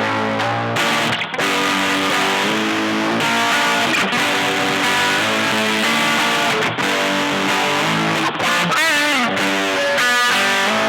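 Electric guitar played through an EarthQuaker Devices Zoar distortion pedal: freestyle chords and held notes, with a note bent up and back down about nine seconds in.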